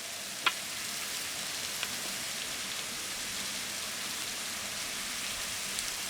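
Steady rushing hiss of falling water from a waterfall pouring into its pool, with a single sharp click about half a second in. The flow is light, since the fall has partly dried up.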